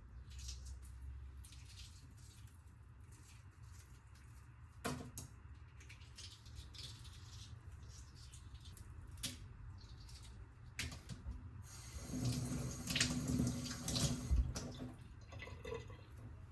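Kitchen tap running briefly near the end, after a few light clicks and knocks of kitchen handling.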